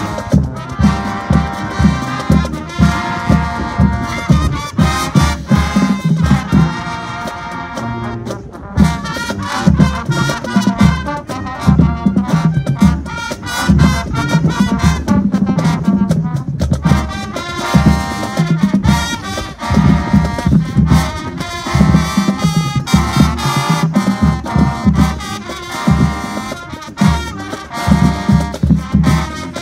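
High school marching band playing live on the field: a loud brass section of trumpets, trombones and sousaphones over a steady, regular drum beat.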